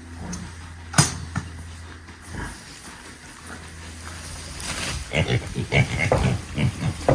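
Pigs grunting in quick short bursts, starting about five seconds in. A single sharp knock comes about a second in, over a steady low hum.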